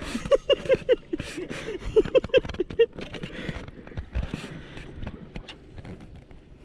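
A hooked giant snakehead (toman) being reeled up beside the boat on a baitcasting outfit: quick irregular clicks and short squeaks for about three seconds, then water splashing and sloshing as the fish works at the surface, with a low thump about four seconds in.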